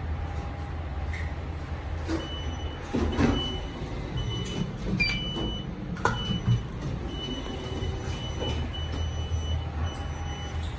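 Passenger lift car humming steadily, with clunks and clicks about two to three seconds in. There is a click about six seconds in as a car-panel button is pressed, and an electronic beep sounds on and off through most of the stop.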